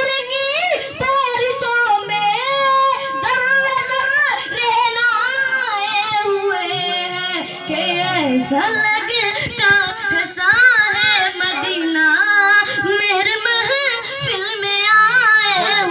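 A boy's high voice reciting an Urdu naat (devotional song praising the Prophet) into a microphone, singing long melodic lines whose pitch bends and wavers.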